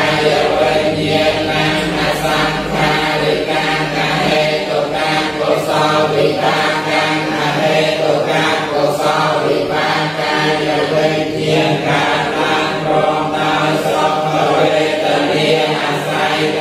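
A group of Buddhist monks and lay people chanting together in unison from their books, a steady, continuous recitation of many voices.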